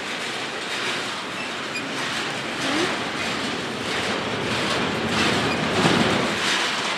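Double-stack container train's well cars rolling past at close range: a steady rumble of steel wheels on rail with clicking over the rail joints.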